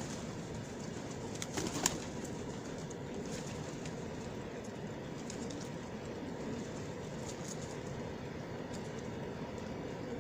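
Pigeons gathered at a feeding spot, with a steady low cooing and rustling and a brief flurry of sharp taps about two seconds in.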